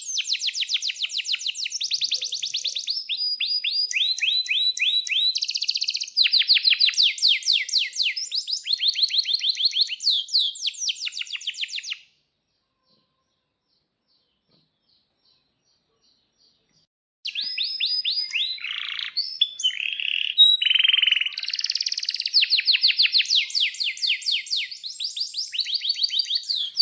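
Male domestic canary singing long rolling trills of rapid repeated notes, switching from one trill to the next. The song breaks off about twelve seconds in, with about five seconds of silence before it starts again.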